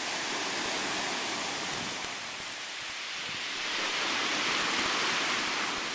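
Ocean waves surging against molten lava at a lava ocean entry: a steady rushing noise that swells louder for a couple of seconds about four seconds in.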